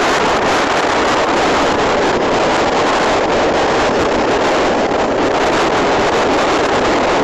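A rescue motorboat under way: a steady rush of engine, water and wind buffeting the microphone.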